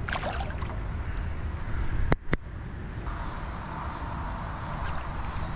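Wind buffeting the microphone in a steady low rumble, with two sharp clicks just after two seconds in. A steady high hiss joins from about three seconds in.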